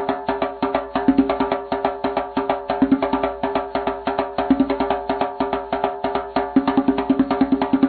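Background music with a fast, steady, clicky percussive beat over held tones.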